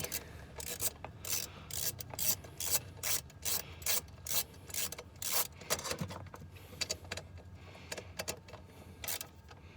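Ratchet wrench with a 10 mm socket being worked in quick strokes, each one a short rasping click-burst, about two to three a second, tightening a battery bolt; the strokes thin out and stop a little past halfway.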